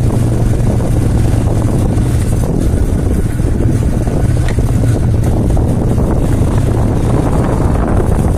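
Motorcycle engine running steadily while riding, with a constant low hum under road and wind noise.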